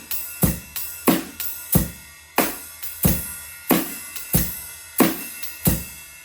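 Drum kit playing a steady rock 'money beat': bass drum on beats 1 and 3, snare on 2 and 4 and quarter notes on the hi-hat, with a ride cymbal pattern played over it. The main strokes fall evenly, about one and a half a second.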